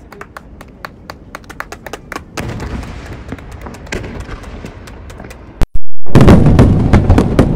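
Fireworks display: rapid crackling and popping from falling sparks and glittering stars. About six seconds in comes a sudden run of very loud shell bursts.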